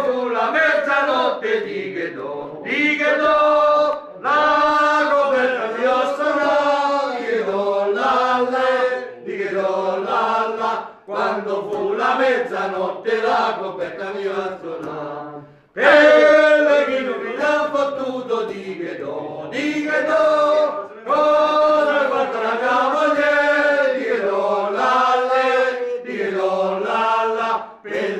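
Several voices singing a song together without instruments, in phrases with a short break about halfway through.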